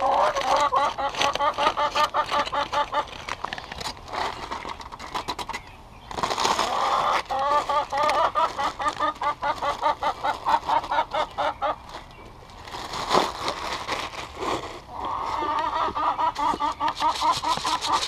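Backyard hens singing: three long bouts of a rapid, stuttering run of clucking notes, the first at the start, the second from about six seconds in, the third from about fifteen seconds in, with short clicks and rustles in between.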